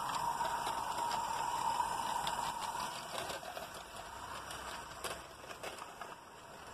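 Merlin Mayflower live-steam garden locomotive hissing steam as it runs past, fading as it moves away about halfway through, with a few light clicks near the end.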